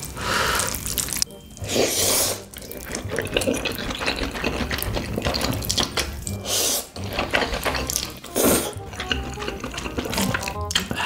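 Close-miked slurping of saucy instant noodles, with chewing between slurps. Several loud wet slurps come right at the start, about two seconds in, and around six and eight and a half seconds.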